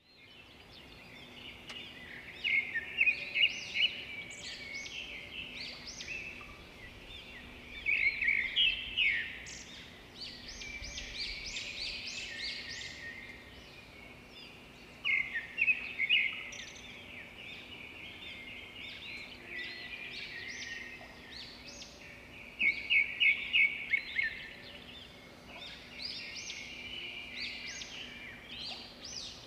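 Birds chirping and calling in clusters of quick, high notes that come every few seconds, over a faint steady hum.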